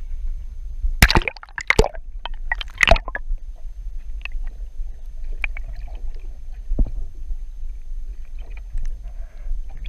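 Water splashing and sloshing at a boat over a steady low rumble, with two bursts of loud splashing about a second and about three seconds in, then smaller scattered splashes and knocks.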